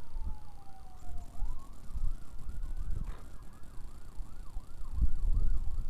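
A siren, faint under wind rumbling on the microphone. Its pitch falls for about a second and a half, then climbs back with a fast, even warble.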